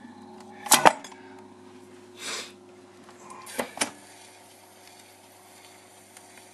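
Clicks and clunks of a 78 rpm record and the tonearm being handled on an RGD radiogram's turntable. The loudest clunk comes about a second in, a brief rustle follows, and two sharper clicks come near the middle, over a faint steady hum from the set.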